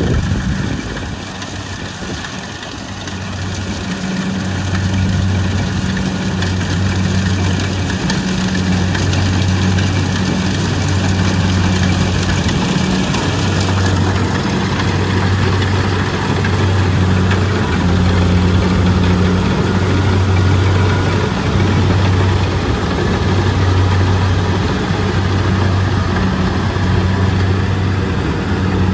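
Kubota rice combine harvester's diesel engine running with a steady low drone.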